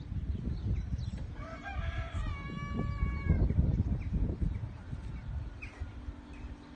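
A rooster crowing once, a single call of about two seconds that starts about a second in, rising and then held, over a low rumble.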